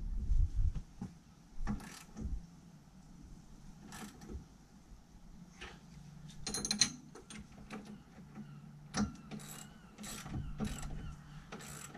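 Socket ratchet clicking in short bursts as bolts are tightened on a towbar bracket, with a longer run of clicks about six to seven seconds in.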